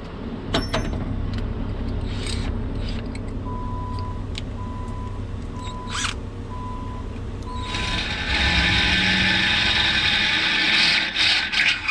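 Cordless drill boring into the trailer's metal rail, starting about eight seconds in and running steadily, after a few light knocks of the rack being positioned. A faint beep repeats about once a second through the middle.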